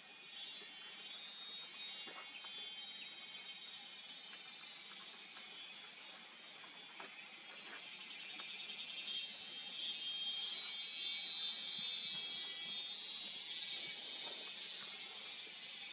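High, steady insect trilling that gets louder about nine seconds in, with faint pops and crackles from a wood campfire underneath.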